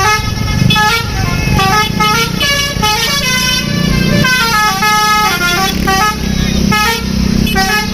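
Basuri telolet musical bus horn playing quick runs of notes that step up and down, phrase after phrase, with a bus engine running low underneath.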